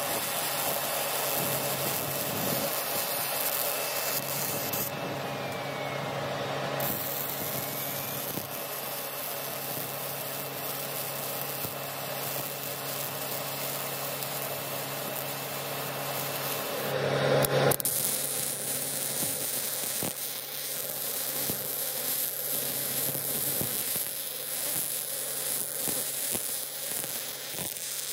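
MIG welding with a Miller Multimatic 220 AC/DC running .035 ER70S-6 solid wire: the arc keeps up a steady noise as a bead is laid on steel, with a steady low hum beneath. It surges briefly louder about two-thirds of the way through.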